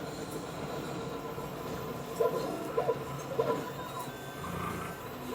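Small desktop FDM 3D printer printing: a steady whir from its stepper motors, with three short louder moves a little over two, nearly three and about three and a half seconds in.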